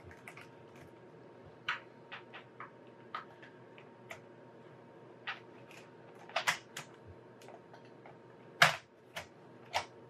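Laptop keyboard keys on an HP Compaq Presario CQ56 being pressed down one at a time, giving scattered, irregular plastic clicks, with a louder click about eight and a half seconds in.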